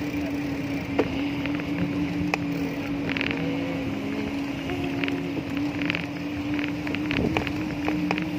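Riding a bicycle along an asphalt road: wind buffets the microphone over steady road rumble and a constant hum. A few short bursts of rapid ticking come through, about three seconds in, near six seconds and again near the end.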